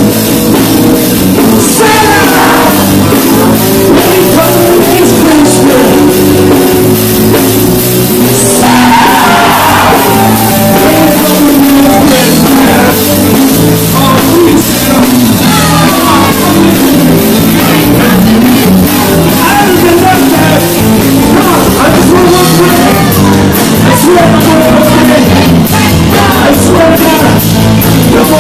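Live rock band playing loudly: electric guitar and drums, with a singer singing into a handheld microphone.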